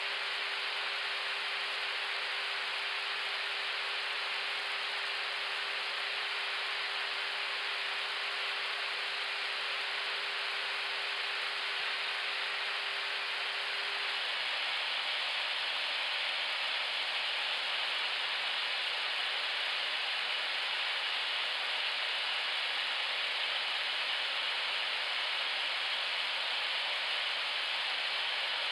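Steady rushing noise on the flight deck of an Airbus A321neo climbing at high speed, mostly air flowing past the cockpit. A faint steady hum under it drops away about halfway through.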